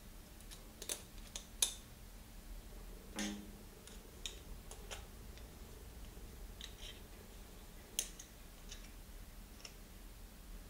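Light, scattered clicks and ticks of a SRAM XX1 rear derailleur's cage, jockey wheel and bolt being handled and fitted together by hand, with one duller knock about three seconds in.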